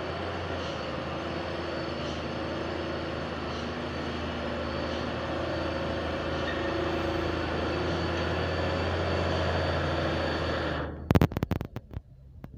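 Truck engine running as the truck comes slowly nearer, a steady low hum with road noise that grows gradually louder. The sound cuts off suddenly about eleven seconds in, followed by a few sharp knocks.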